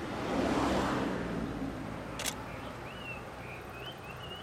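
Low rumble of a distant diesel train hauled by DE10 locomotives, swelling in the first second or so and then steady. A bird's short chirps repeat several times a second from about halfway in, and there is one sharp tick just after two seconds.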